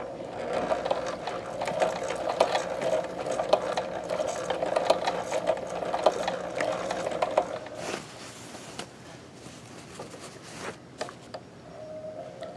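Kenmore 158.1914 sewing machine running, stitching a shank button held in a clamp-type button holder: a steady motor hum with rapid needle clicks. It stops about eight seconds in, leaving only a few scattered light clicks.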